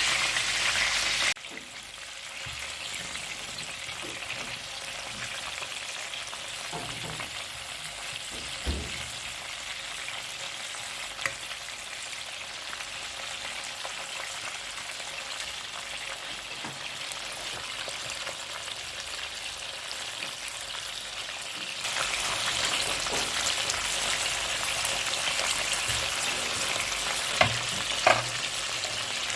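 Chicken wings frying in oil in a pan: a steady sizzle that drops abruptly just over a second in and grows louder again near the end, with a few short clicks and knocks.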